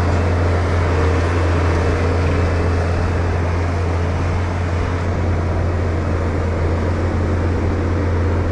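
Skid steer engine running steadily under load as the machine pushes and scoops manure, a constant low drone.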